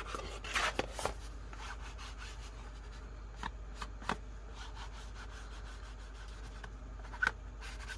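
Distress ink pad rubbed along the edges of a paper journal page: soft, uneven scraping strokes, strongest in the first second, with a few light knocks later on.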